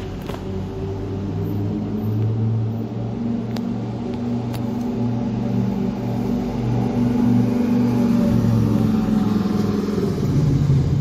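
Lamborghini Huracán's V10 engine running at low revs as the car drives slowly past. It gives a steady low note that grows louder toward the end.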